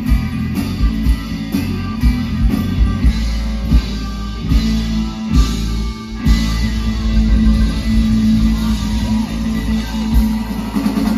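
Live country-rock band playing loudly through a PA, with electric guitar over a steady drum-kit beat. The music drops out for a moment about six seconds in, then carries on.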